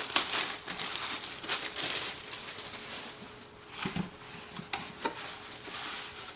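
Plastic packaging bag crinkling and rustling as a kit part is handled and unwrapped. There are a couple of light knocks about four and five seconds in.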